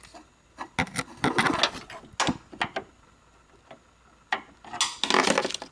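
Flathead screwdriver clicking and scraping against the gear-like headlight aiming screw and the surrounding panel of a 2012 Nissan Maxima: irregular clicks and knocks with two short scrapes, about a second in and near the end, as the tip fails to get a proper turn on the adjuster.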